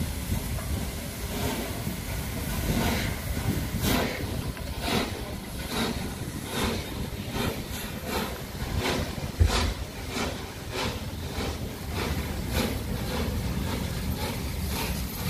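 The exhaust beats of 60163 Tornado, a three-cylinder Peppercorn A1 Pacific steam locomotive, as it pulls away with its train, with a steady rumble beneath them. The beats quicken from about one a second to about two a second as the engine gathers speed.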